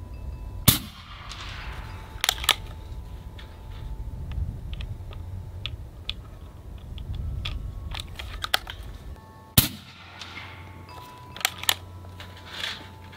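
Two shots from an Umarex Gauntlet .30-calibre PCP air rifle, about nine seconds apart, each a sharp crack. About a second and a half after each shot comes a quick double click of the bolt being worked to load the next slug.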